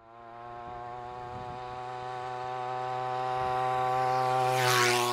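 Small 25cc two-stroke gas-trimmer engine on a motorized bicycle buzzing at steady high revs, growing louder as it approaches. Near the end it sweeps past close by with a brief rushing noise and a slight drop in pitch.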